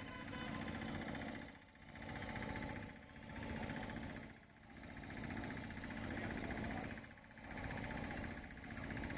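Spinning fishing reel whirring in repeated surges, each about a second and a half long, as line is wound in on a heavy fish.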